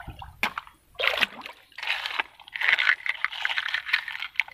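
A hand sloshing and splashing through shallow stream water in irregular bursts, and a toy truck being pulled out from among wet stones.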